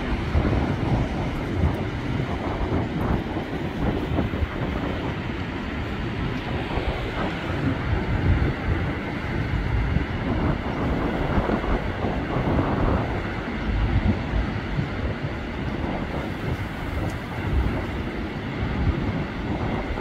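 Gusty wind buffeting the microphone in a constant uneven rumble, over the wash of heavy storm surf breaking on the shore and breakwater.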